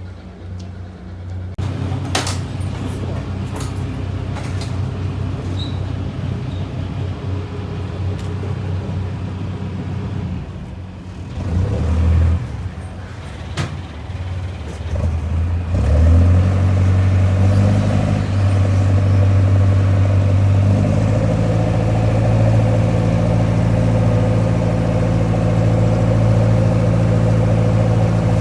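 Small passenger ferry's engine running with a steady hum. A few sharp knocks come in the first half, and from about halfway through the engine grows louder and fuller.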